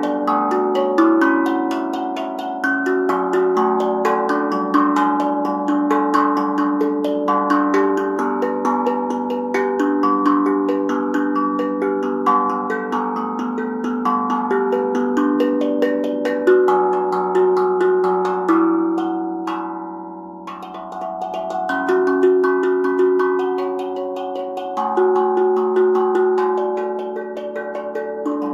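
BeatRise 13-inch, 15-note steel tongue drum struck with long rubber-tipped mallets: notes hit at random one after another, each tone ringing on and overlapping the next. There is a brief lull about two-thirds of the way through.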